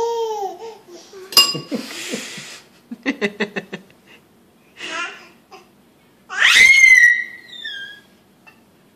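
Young children laughing and squealing: a short giggle at the start, a quick run of laughs about three seconds in, and a loud high squeal about six and a half seconds in. A sharp tap sounds about a second and a half in.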